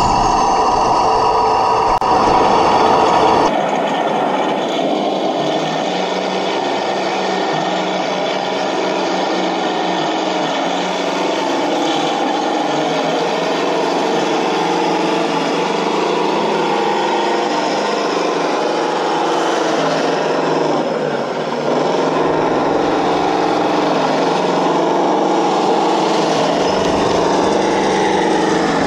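1/16 radio-controlled model tanks running on tarmac: electric drive motors and gearboxes whining under a steady electronic engine sound. The deep rumble drops out about three and a half seconds in and comes back near the end as another tank drives up close.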